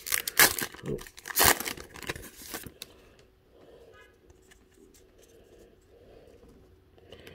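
A 2021 Topps Gypsy Queen baseball card pack's wrapper is torn open and crinkled, loud for the first two and a half seconds. After that only faint handling of the cards is heard.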